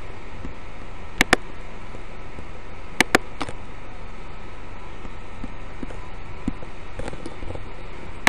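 Computer mouse clicking: a sharp double click about a second in, another about three seconds in, and a single click at the very end, over a steady hiss.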